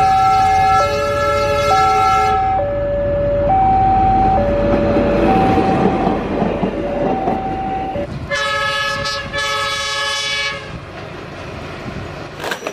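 Diesel locomotive horn sounding a long blast, then two more blasts about eight seconds in, over the rumble and clatter of a passing train. Under it, a two-tone warning signal alternates between a higher and a lower pitch about once a second, stopping about eight seconds in.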